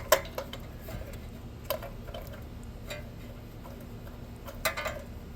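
A handful of separate sharp clicks and taps from hand tools and small metal engine parts being handled, a few at the start and a small cluster near the end, over a faint steady hum.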